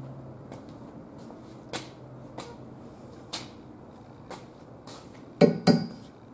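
Light clicks and knocks of handling and moving about under a car on a lift, with two louder knocks in quick succession about five and a half seconds in. A low steady hum fades out over the first second or two.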